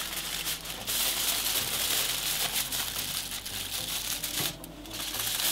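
Aluminium foil crinkling and rustling as it is pressed down and crimped around the rim of a glass baking dish to seal it, with a short lull about four and a half seconds in.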